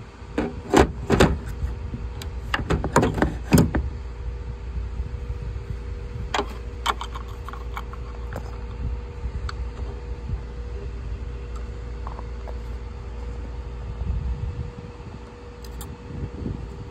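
Hand tools clicking and knocking against the frunk latch assembly and plastic trim of a Tesla Model Y: a quick run of sharp clicks in the first few seconds, a couple more about six to seven seconds in, over a steady low rumble.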